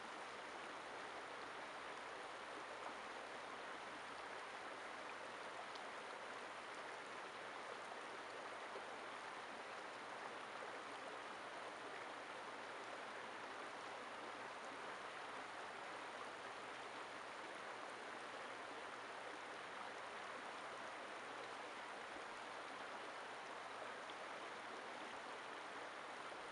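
Shallow river flowing over rocks, a steady rush of water.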